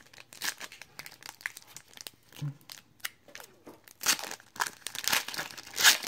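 Plastic foil wrapper of a trading card pack crinkling and tearing as it is ripped open, with scattered small clicks of cards being handled; the loudest crinkling comes in the last two seconds.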